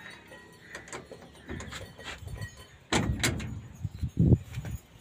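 Metal clanks and knocks from tools working on a truck's differential pinion flange, where the pinion nut was found loose. It is quiet at first; about three seconds in come a couple of sharp metallic clinks, then several heavier, duller knocks.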